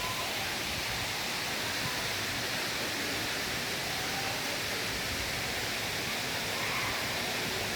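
Waterfall rushing nearby: a steady, even roar of falling water.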